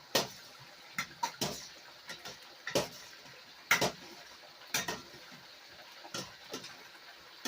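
A cooking utensil clinking and knocking against cookware: about ten sharp, irregular strikes over a faint steady background.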